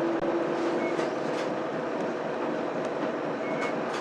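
Mitsubishi Fuso Aerostar bus's 6M70 six-cylinder diesel idling, heard from inside the bus while it stands at a stop. Two short high beeps, about a second in and near the end.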